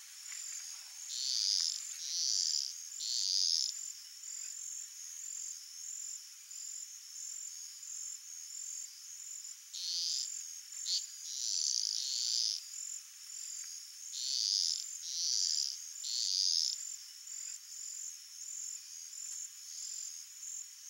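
A high-pitched chorus of calling animals: a steady pulsing trill, over which short buzzy calls of about half a second come in groups of two to four, a few seconds apart.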